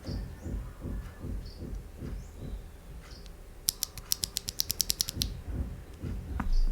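Steady typing on a mechanical keyboard with stock, factory-lubed Akko Jelly Black linear switches, steel plate and aluminium case: deep, muted keystrokes about three to four a second. About halfway through comes a quick run of about a dozen sharp clicks, and there is a heavier thud near the end. Birds chirp faintly in the background.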